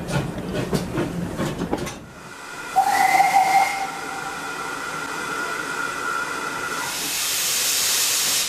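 Steam locomotive working with a rhythmic beat, then a whistle blast about three seconds in, its main note lasting about a second and one higher tone carrying on for a few seconds more. A loud hiss of steam builds near the end and cuts off suddenly.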